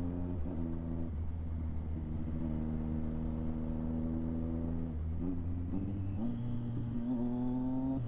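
Triumph Street Triple 765 RS three-cylinder engine running through a Delkevic aftermarket exhaust under way. It holds fairly steady revs, then climbs from about six seconds in and drops sharply with a gear change at the end.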